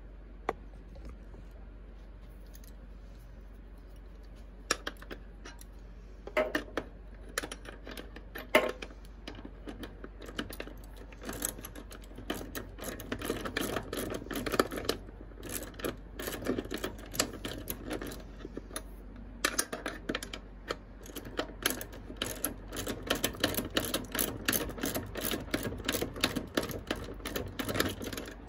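Socket ratchet clicking as a nut on the seat's mounting bolt is turned, with a wrench holding the bolt. A few separate metal clicks come first, then from about a third of the way in long runs of fast ratchet clicks with short pauses.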